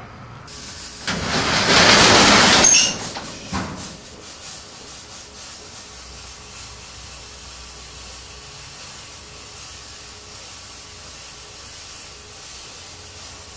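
A smoke effect hissing out in one loud rush of about two seconds, starting about a second in, followed by a short second puff.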